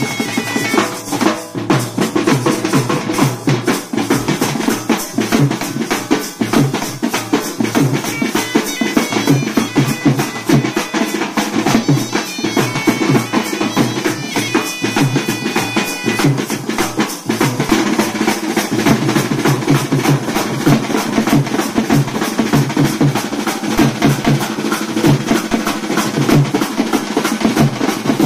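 A street band's drums played together in a fast, dense rhythm: a large bass drum beaten with a stick and several double-headed side drums played with sticks, with small hand cymbals clashing along.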